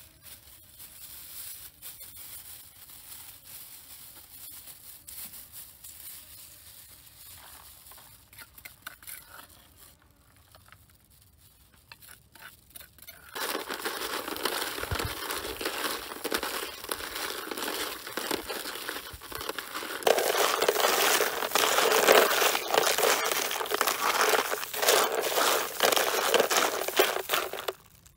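Plastic bag crinkling and rustling as a bag-covered hand works through a tray of blood cockles. It is faint at first, then much louder and busier from about halfway in, before cutting off just before the end.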